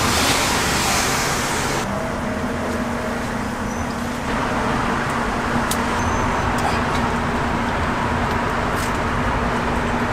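Road traffic noise with a steady low hum, a louder wash of hiss in the first two seconds, and scattered light clicks.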